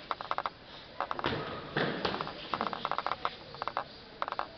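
Boxers' shoes shuffling and patting on a hard floor during sparring footwork, in short bursts of rapid patter a second or so apart.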